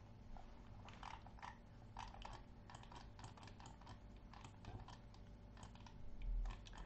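Faint, irregular clicking from a computer keyboard and mouse being worked, with a low thump about six seconds in.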